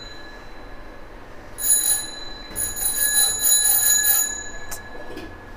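Bright metallic ringing in bursts: a short burst about a second and a half in, then a longer run of rapid strikes, followed by a single sharp click near the end.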